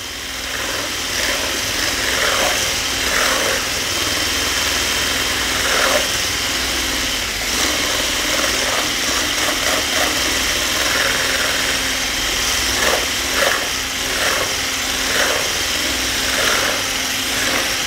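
Electric hand mixer with a single whisk attachment running steadily, whipping cream in a stainless steel bowl; the cream is half whipped.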